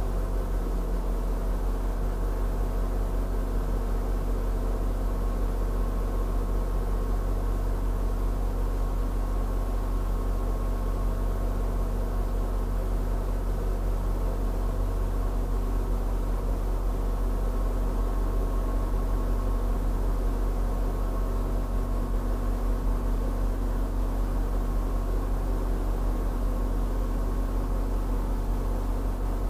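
Steady droning hum of an idling engine, with a deep low rumble and several steady higher tones that do not change.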